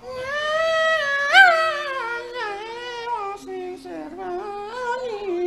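A single high voice singing a long, wavering, ornamented Javanese-style vocal line, with a sharp upward flourish about a second and a half in that is the loudest moment, then sinking lower toward the end.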